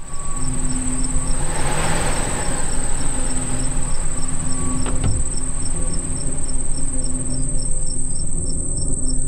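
Layered horror night-ambience sound effect: a steady high cricket-like chirring with a faint regular ticking over a low rumbling drone, a swoosh about two seconds in, and a single sharp drip-like click about five seconds in.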